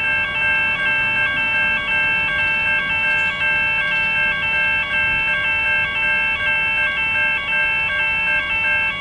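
Railway level crossing warning bells ringing: an electronic two-tone alarm repeating steadily about twice a second, the sign of an approaching train.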